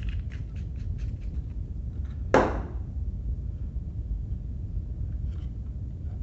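Small parts being handled on a workbench: a quick run of light clicks, then a single sharp knock a little over two seconds in, and a few faint clicks near the end, over a steady low rumble.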